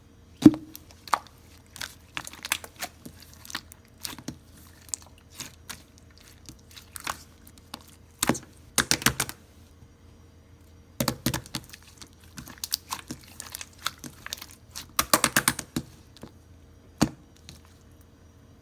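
Typing on a computer keyboard in short, uneven bursts of rapid keystrokes separated by pauses and single clicks, over a faint steady hum.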